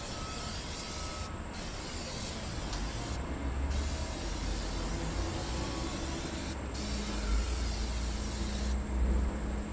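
Aerosol can of PAM non-stick grilling spray hissing in four long bursts with short breaks between them, coating the hot grates and inside surfaces of a propane grill to season it. A low rumble runs underneath.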